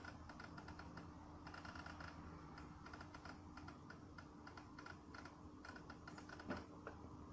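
Newly installed Daikin air conditioner making faint, rapid, irregular clicking in runs over a steady low hum: an abnormal noise the owner cannot explain.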